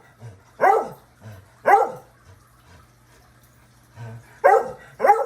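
A dog barking: two short barks about a second apart, a pause of roughly two and a half seconds, then two more in quick succession near the end.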